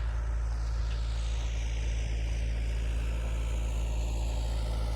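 John Deere 60D compact excavator's diesel engine running steadily at high throttle while the machine works, with a faint whine that rises and falls above it.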